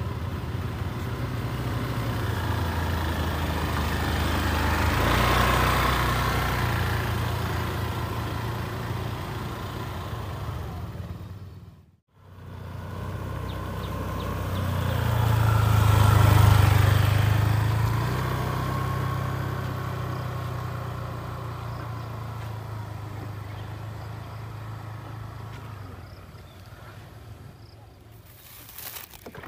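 Small automatic motor scooter riding past on a dirt track, its engine hum swelling as it approaches and fading as it goes. The sound cuts out briefly near the middle, then a second, louder pass rises and fades away.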